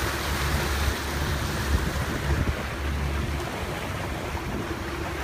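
Steady rush of a motorboat under way: water churning past the hull and wake, wind across the microphone, and a low engine drone beneath.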